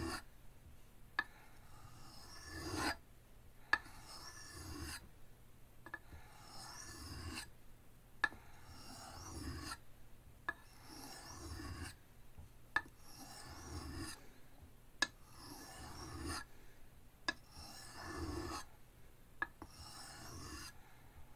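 Knife blade drawn across an oiled Arkansas sharpening stone in slow, even scraping strokes, about one every two seconds, each starting with a sharp click as the edge meets the stone.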